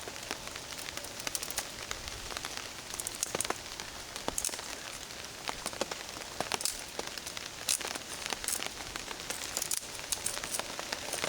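Steady rain falling on a tarp, with many scattered sharp ticks of drops throughout.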